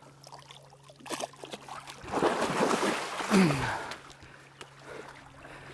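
Splashing and sloshing in shallow, muddy river water for about two seconds in the middle, with a short falling grunt, over a steady low hum.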